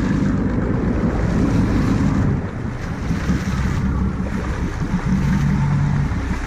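Fishing boat's engine running steadily, with water rushing past the hull and wind buffeting the microphone.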